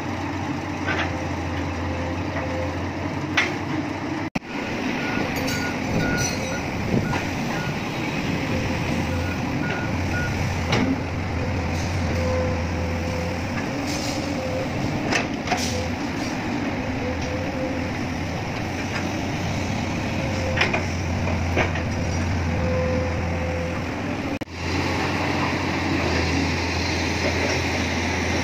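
Heavy excavator's diesel engine running steadily, with a warning alarm beeping in short even pulses for a few seconds and occasional sharp knocks.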